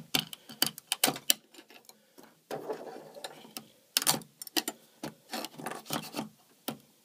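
A metal spatula prying 3D-printed ABS parts off a perforated, PCB-type build plate: an irregular run of sharp clicks and snaps as each part's raft breaks free of the holes it was printed into.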